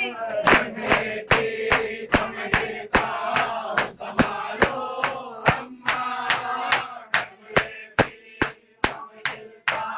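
Shia mourners' matam: a group slapping their chests in unison, a bit over two slaps a second, under men's voices chanting a noha lament. The chanting drops away for a few seconds in the second half, leaving only the slaps, then comes back near the end.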